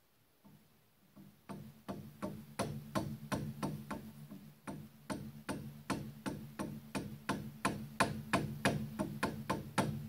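Copper mallet tapping a mini lathe's milling attachment in a fast run of sharp taps, about three a second, getting harder toward the end, to knock it round by a few thousandths of an inch into alignment. A steady low hum runs underneath.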